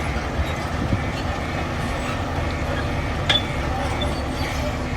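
Heavy construction machine's diesel engine running steadily with a low rumble, with scattered short squeaks and one sharp clank a little past three seconds in.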